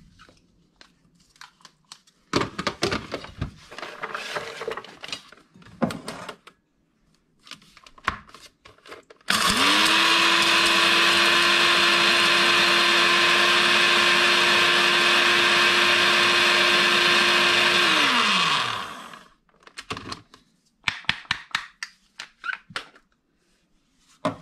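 Small electric grinder running for about nine seconds with a steady whine, grinding dried leek pieces to powder. It starts suddenly about nine seconds in and winds down, falling in pitch, near the end. Before it, dry leek pieces crackle and rattle as they are tipped into the grinder cup, and a few clicks follow afterwards.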